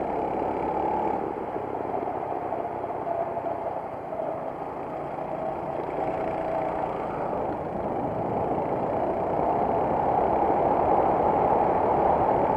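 Racing kart engine running hard, heard from on board. Its note and loudness sag briefly about four seconds in, then climb steadily as the kart accelerates, loudest near the end.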